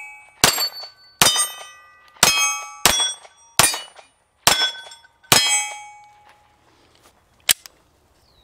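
Walther PPQ M2 pistol fired seven times at a slow, uneven pace. Each shot is followed by a short metallic ring from the steel targets being hit. A single short, sharp click follows near the end.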